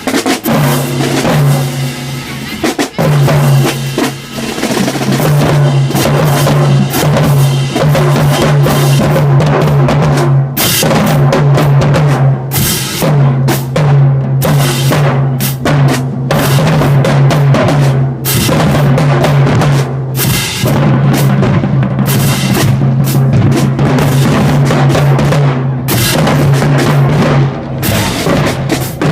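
High school marching band playing as it marches in: a loud drumline with bass drums and snares under long, held low notes.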